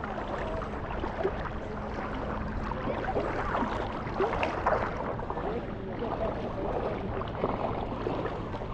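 Busy beach ambience: a steady wash of water-like noise with the scattered chatter of many people, and a faint low steady hum underneath.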